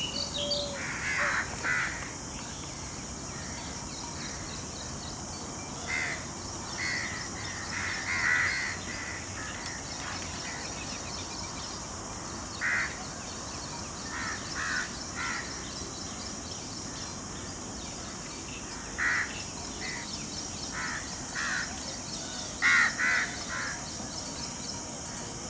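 Indian peafowl calling: short, loud calls in twos and threes every few seconds, over a steady high hiss.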